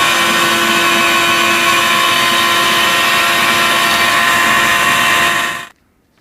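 Power tool running steadily at full speed with a held whine, then cut off abruptly about five and a half seconds in.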